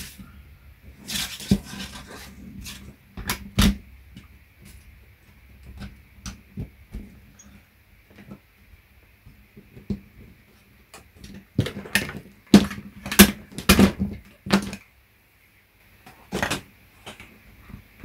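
Hands handling an opened Dell laptop power brick and its cables on a workbench: scattered clicks and knocks of the plastic case and connectors, busiest about twelve to fifteen seconds in.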